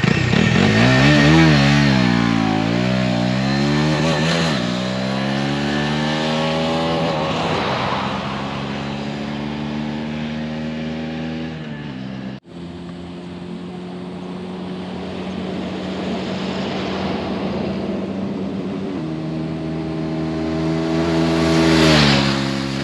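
Bajaj Dominar 250's single-cylinder engine heard through its stock exhaust as the bike rides by. The note rises and falls with the throttle at first, then sinks slowly. After a sudden break about twelve seconds in, it runs steady, climbs and is loudest near the end as the bike comes past.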